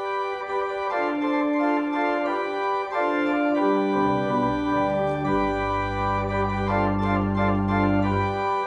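Church organ playing the postlude in sustained chords; deep pedal bass notes come in about halfway and hold.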